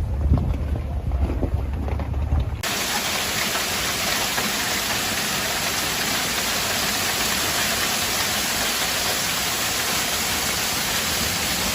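A hailstorm: wind buffets the microphone with a deep rumble and a few sharp hits. After a sudden cut about two and a half seconds in, heavy rain and hail make a steady, even hiss.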